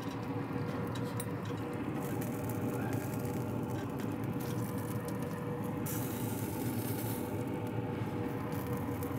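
Yoder YS640s pellet grill running hot with its fire turned up: a steady hum and rush throughout. A metal spatula scrapes a few times against the grill rack as burgers are lifted off.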